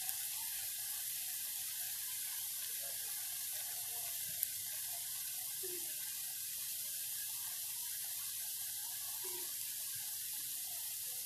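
Saba banana cheese balls deep-frying in hot oil in a pan, with a steady high sizzle throughout. A single small click comes about four and a half seconds in.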